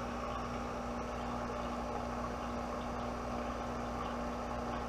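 Steady hum of running equipment, one even tone over a whirring hiss, unchanged throughout, while the voltage across the vacuum-chamber electrodes is slowly raised and no arc has struck yet.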